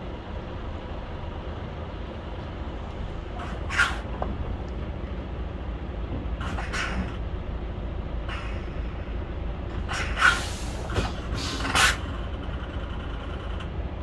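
Steady low rumble of a parked truck, broken by four short hisses of compressed air from the truck's air system.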